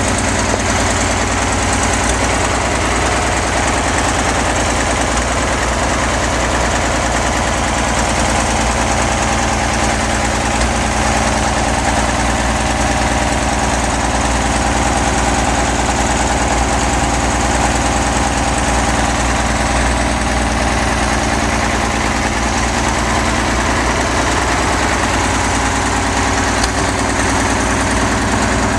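A 1946 Caterpillar D6 crawler dozer's diesel engine idling steadily at an even pace.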